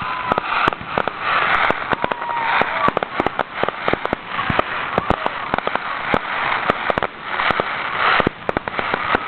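Fireworks display: an irregular, rapid run of many sharp bangs and pops over a steady background din.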